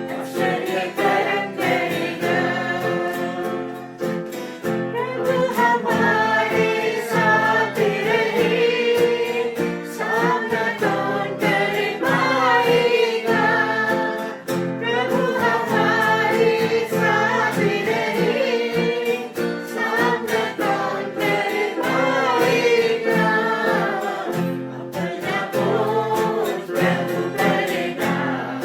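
Christian worship song: several voices singing together over instrumental accompaniment.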